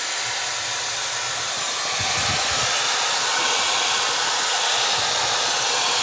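Dyson Airwrap Complete running with its pre-styling dryer attachment: a steady rush of blown air with the motor's whine, getting a little louder about two seconds in.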